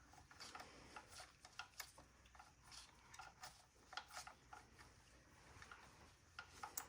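Faint, irregular small clicks and ticks with light rubbing as the transmission drain plug is turned in by hand.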